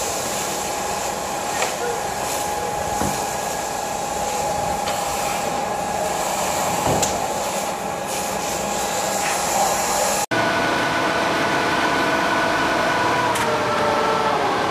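A fire hose sprays water with a steady hiss over a constant mechanical hum. About ten seconds in the sound cuts abruptly to a fire truck's engine and pump running steadily, the pitch sagging slightly near the end.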